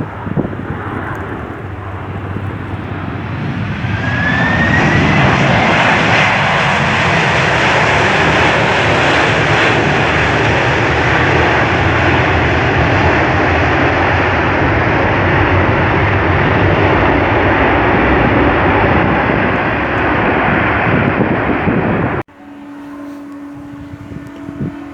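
Jet airliner engines close by, growing loud about four seconds in with a climbing whine as the engines spool up, then a steady loud jet noise. It cuts off abruptly near the end, leaving a quieter steady hum.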